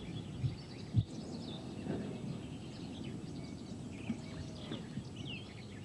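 Quiet background with faint, scattered bird chirps, and a single soft knock about a second in.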